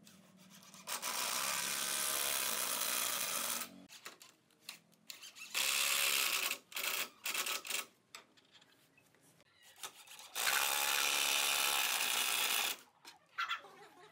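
Cordless drill boring into pine boards in three runs: one of about three seconds, a shorter one followed by a few quick trigger blips, and another of about two seconds near the end.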